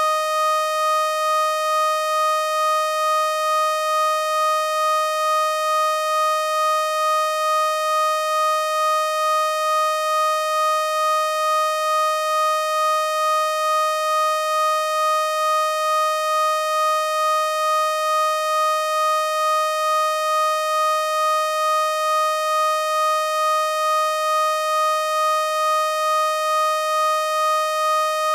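Sound-healing frequency tone, a personalized tone generated from a voice sample: one steady, mid-pitched electronic tone with many overtones, pulsing gently and evenly in loudness.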